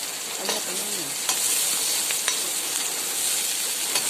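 Onions sizzling as they fry in hot oil in a pan, with a steady hiss and a few sharp clicks of a utensil stirring them.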